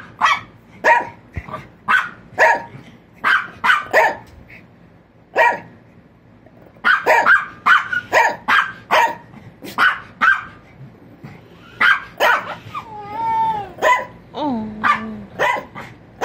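Small tan dog barking sharply and over and over, about one or two barks a second, with a pause of about two seconds a third of the way in. About three-quarters of the way through come a few long, wavering, whine-like cries.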